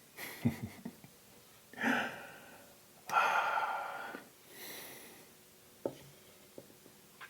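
A person breathing close to the microphone: a short breathy exhale about two seconds in, then a longer, louder one like a sigh that fades out, with a few small clicks afterwards.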